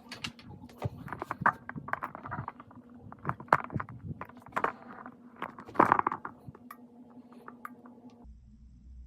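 Keys of an Apple A1048 keyboard being typed on: an irregular run of sharp key clicks and clacks, busiest over the first six seconds, then a few scattered presses.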